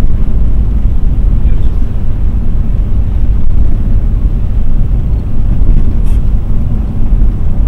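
Mercedes-Benz W126 heard from inside the cabin while driving: a steady low rumble of engine and road noise.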